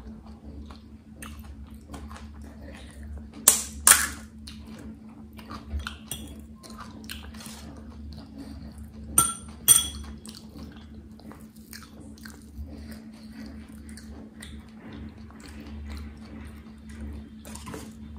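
Close-miked chewing of pani puri, with two pairs of loud, sharp crunches of the crisp puri shells, one about three and a half seconds in and another near ten seconds, and light clicks and rustles as the shells are handled.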